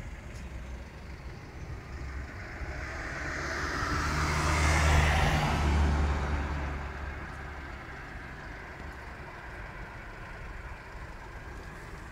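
A road vehicle drives past close by: its engine hum and tyre noise swell to a peak about five seconds in, then fade away, over steady background traffic.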